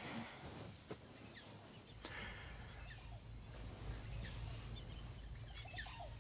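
Faint natural ambience of scattered bird chirps over a steady high insect drone, with a single soft click about a second in and a low hum coming in about two seconds in.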